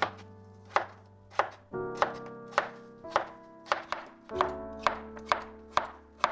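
Knife slicing cucumber on a cutting board: an even chop, about two strokes a second, over soft background music.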